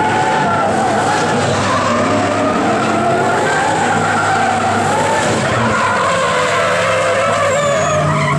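Nissan Silvia S14 drift car sliding sideways under power, its engine held high in the revs with a note that rises and falls, over the steady screech and rush of spinning, skidding tyres.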